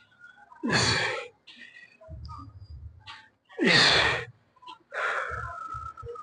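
A man's loud, strained exhalations as he presses through reps on a seated shoulder press machine, three hard blows of breath falling in pitch, at about one, four and five seconds in.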